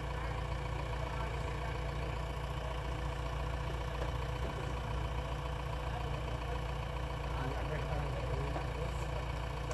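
Heavy diesel machinery idling steadily: the engines of a JCB backhoe loader and a tipper truck standing with its bed raised, a constant low rumble with no revving.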